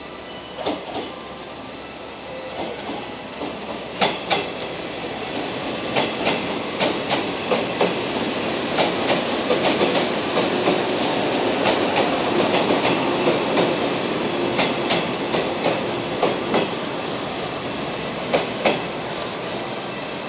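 JR West 113 series four-car electric train rolling past at low speed, its wheels clicking over rail joints and points above a steady running rumble. The clicks come thicker as the cars pass mid-way.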